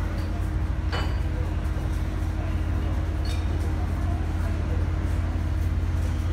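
Railway station platform ambience: a steady low rumble with a faint hum, and two light clinks, about a second and three and a half seconds in.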